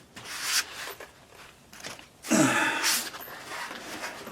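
Plastic fender liner scraping and rustling as it is worked into a car's wheel well, in two bursts, the louder about two seconds in with a short falling grunt-like tone.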